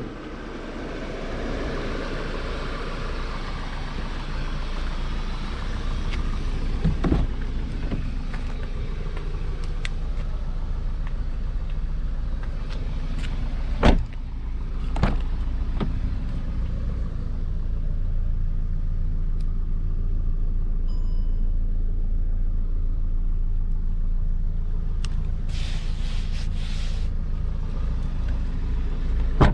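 Audi Q3 2.0 TFSI turbocharged four-cylinder petrol engine idling with a steady low hum. A car door is opened with a sharp click about 14 seconds in, with a few smaller knocks around it.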